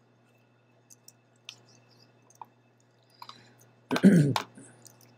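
A few faint, scattered computer clicks, then a short chuckle about four seconds in.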